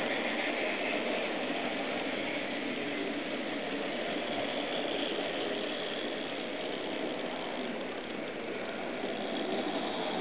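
Steady, even running noise of model trains on a layout, mixed with the general background noise of the exhibition hall, with no distinct knocks or changes.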